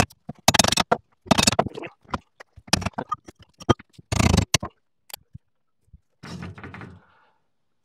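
Repeated hammer blows on the metal slipper clutch of a Bush Hog 286 rotary cutter's driveline, about eight strikes over five seconds, trying to knock the stuck clutch loose. A shorter, softer noise follows near the end.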